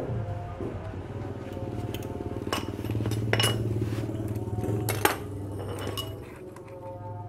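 Metal tools and parts clinking as a scooter's CVT clutch assembly is taken apart by hand, with a few sharp clinks about two and a half, three and a half and five seconds in. A steady low hum runs underneath.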